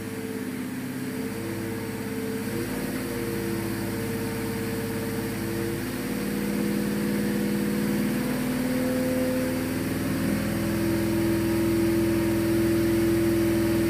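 Fuel-injected Oldsmobile 455 big-block V8 running on an engine dyno, its speed climbing from about 2,000 to 2,500 rpm. The note steps up in pitch twice and grows slightly louder.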